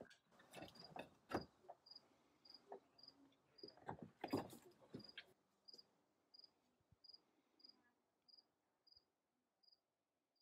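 Faint cricket chirping: one short, high chirp a little under twice a second, slowing slightly toward the end. A scatter of soft knocks and clicks sounds in the first five seconds, the loudest about a second and a half in and about four and a half seconds in.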